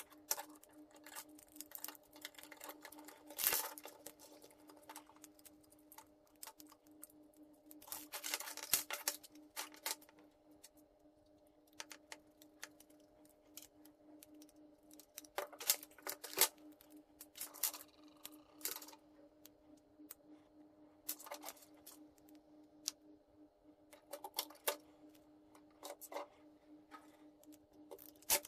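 Small plastic parts and metal screws clicking, tapping and rattling as a hobby servo and 3D-printed steering links and mount are handled and fitted together by hand, in scattered clicks with a few short bursts of rustling. A steady faint hum runs underneath.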